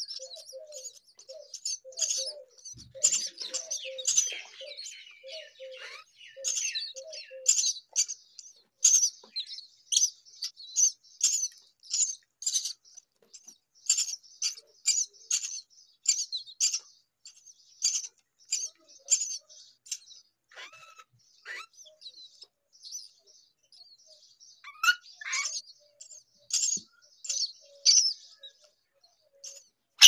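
Hungry common myna nestlings begging for food with short, high, thin chirps, repeated over and over in quick irregular runs.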